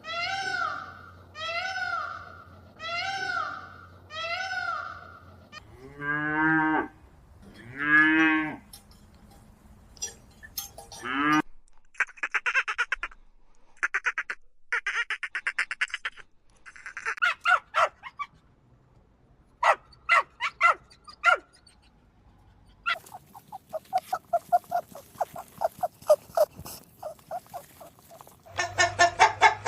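A run of farm animal calls: four honking calls about a second apart, then two long cow moos about six and eight seconds in, then a string of short, sharp calls and clicks, and near the end chickens clucking.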